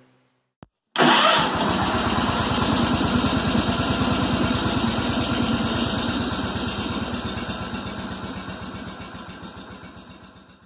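A single click, then about a second in an engine starts with a loud burst and runs at a fast, even beat, slowly fading out and cutting off near the end.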